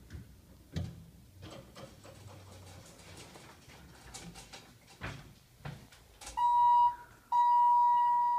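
A buzzer in a Dover elevator car gives a steady, high electronic beep twice: a short one about six seconds in, then a longer one of about two seconds. Before the beeps there are soft clicks and knocks.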